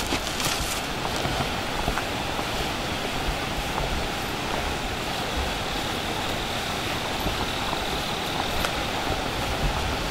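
Steady rushing outdoor noise, even and unbroken, with a few faint footsteps on leaf litter.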